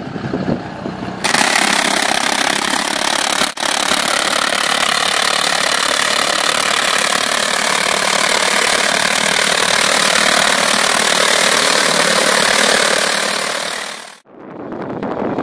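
Tractor running with a mounted Battistotti vine-trunk cleaner working through tall grass: a loud, steady rushing whir. It starts suddenly about a second in and cuts off abruptly near the end.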